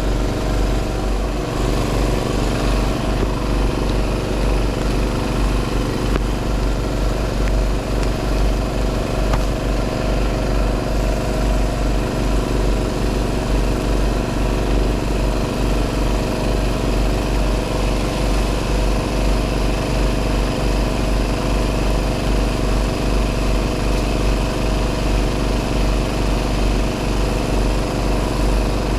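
An engine running steadily at idle, a constant low hum with an even pitch.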